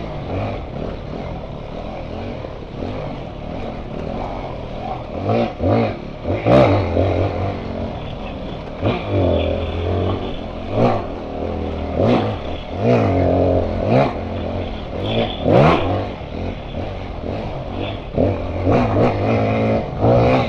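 Dual-sport motorcycle engine revving up and down in repeated short bursts of throttle, with knocks and clatter from the bike over rough ground.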